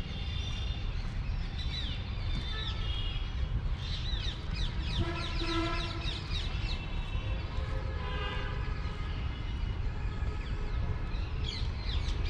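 Many birds calling together, a dense chorus of high chirps and quick falling squeaks, with a few harsher, fuller calls around the middle. A steady low rumble runs underneath.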